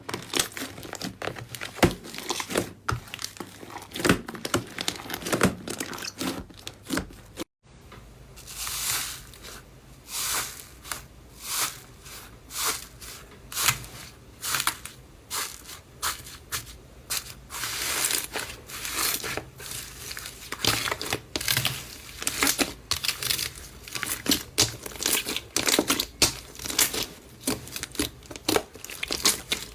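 Slime being squeezed, pressed and stretched by hand, giving a run of sharp crackles and pops at roughly one or two a second. A brief dead silence comes about seven and a half seconds in, between two bouts of play.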